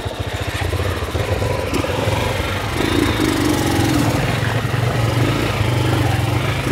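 Honda motorcycle engine running under load while riding over rough ground. About a second in the engine note steadies and grows louder, and around three seconds in it climbs higher as the revs pick up.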